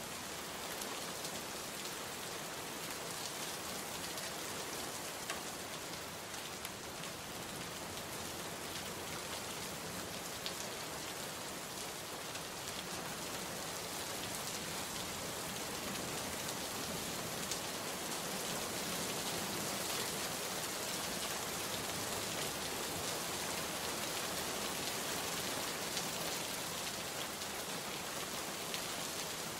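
Steady rain falling on a surface, an even hiss of many drops with occasional single drop ticks, growing slightly heavier after the middle.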